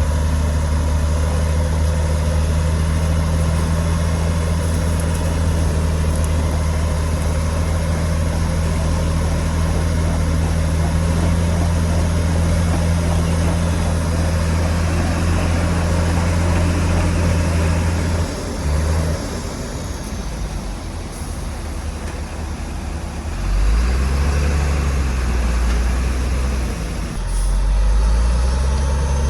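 Heavy diesel engine of earthmoving machinery running steadily, quieter for a few seconds past the middle, then coming back and changing pitch near the end.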